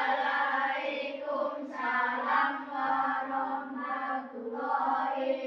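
A group of schoolchildren chanting together in unison in a drawn-out sing-song, in three long phrases with short breaks between them.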